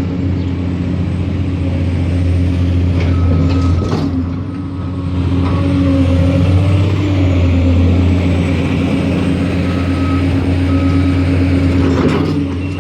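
Heavy diesel construction machinery running steadily at a road-construction site, with a couple of sharp knocks about four seconds in and near the end.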